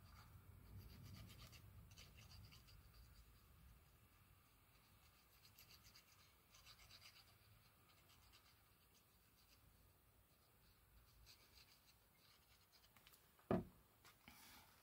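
Faint scratching and rubbing of glue being spread onto paper or card, with one sharp tap about thirteen and a half seconds in.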